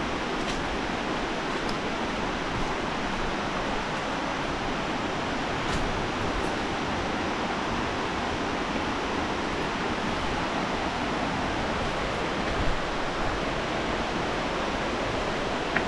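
Steady, even rush of water from a waterfall, with a few faint clicks over it.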